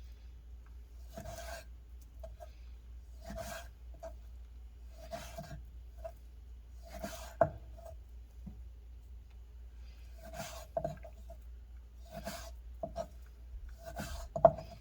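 A kitchen knife slicing raw sea bass belly into sashimi on a cutting board: short rasping strokes, roughly one every two seconds, with a sharp click about seven seconds in.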